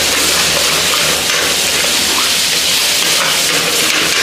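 Paneer in tomato-onion masala frying in an iron pan over a high gas flame: a steady, loud sizzling hiss.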